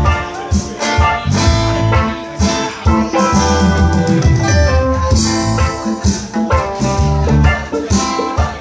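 Live reggae band playing an instrumental passage, guitar to the fore over a deep bass line and regular drum hits.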